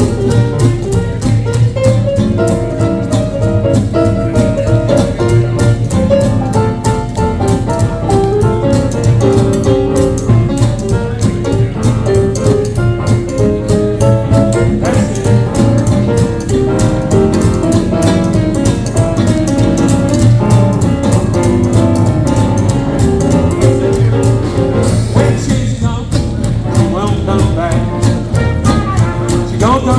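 Live hot-jazz swing band playing a 1920s–30s style number, with melody lines over a steady, driving swing beat.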